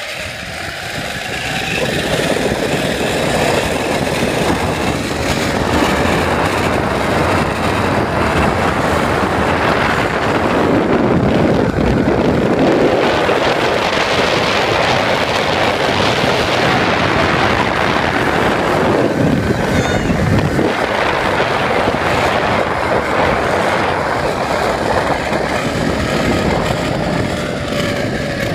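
Wind rushing over a phone microphone together with the zip-line trolley's pulleys running along the steel cable during a fast ride. The noise builds over the first couple of seconds, holds steady, and drops a little near the end as the ride slows toward the landing.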